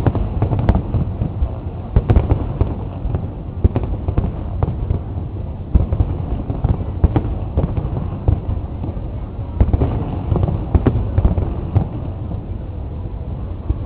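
Aerial firework shells bursting in many quick, irregular bangs over a continuous low rumble. The bangs thin out near the end.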